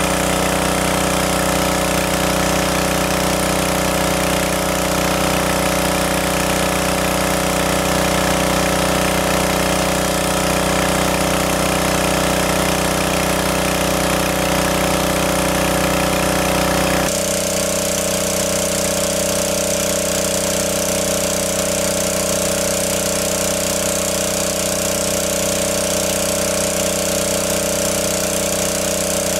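Small engine-driven water pump running steadily at a constant speed while it draws water out of a lake. A little over halfway through, the sound shifts abruptly to less low rumble and more high hiss.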